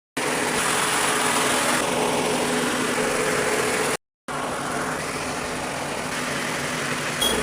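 An engine running steadily at idle with a constant hum. It cuts out completely for a moment about four seconds in, then carries on slightly quieter.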